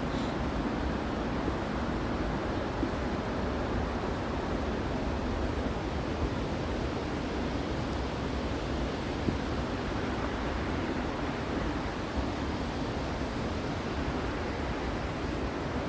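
Steady road and wind noise of a moving car, an even low rumble and hiss.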